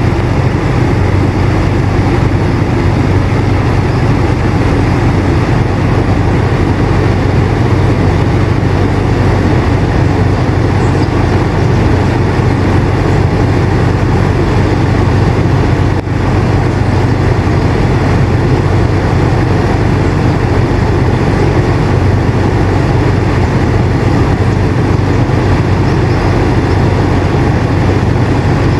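Air conditioner running steadily: a low hum under an even rush of air, with one very brief dip about halfway through.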